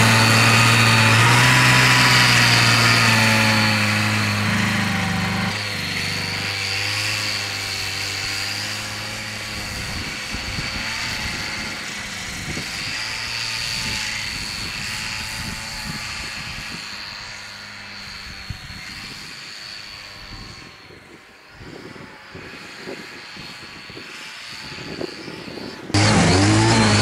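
Buran 640 snowmobile's two-stroke engine running under throttle as it ploughs through deep powder snow. Loud and close at first, it drops away after about five seconds and grows faint as the machine moves off. It is loud and close again in the last second.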